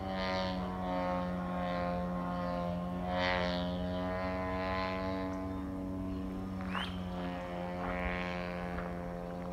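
Radio-controlled model airplane's engine droning overhead at a steady pitch.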